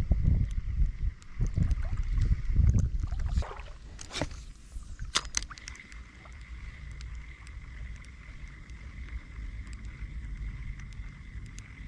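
Wind buffeting the microphone with a heavy low rumble for the first few seconds, then a swish and a couple of sharp clicks about four to five seconds in. After that, a quieter steady outdoor hiss with a faint steady high hum.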